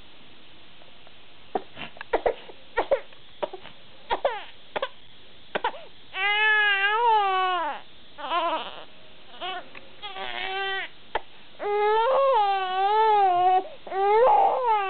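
Young baby crying: after a brief pause, short gasping sobs, then several long wails that rise and fall in pitch.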